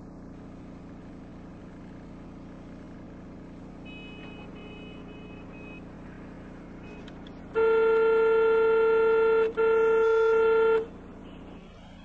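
Car horn sounding in two long blasts, the first about two seconds long and the second just over a second, over the steady low hum of traffic and an idling engine.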